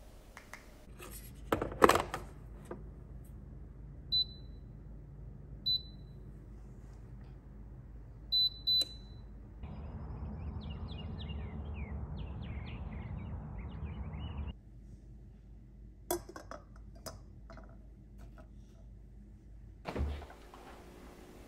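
A few household clicks, then four short, high electronic beeps on one pitch, two of them close together. Birds then chirp for a few seconds over a steady outdoor rush, followed by scattered clicks and a thump near the end.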